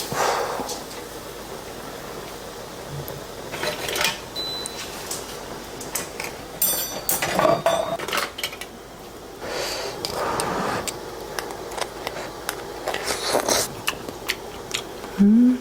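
Close-miked eating sounds over a meal of oysters: sharp clicks and clatter of shells and utensils, with several noisy eating bursts about a second long spread through. A short rising hum comes near the end.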